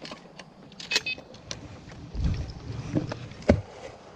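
Metallic clicks and clinks of a shotgun being loaded, one ringing briefly, then a low thump about two seconds in and a sharp clack about three and a half seconds in as the action is closed.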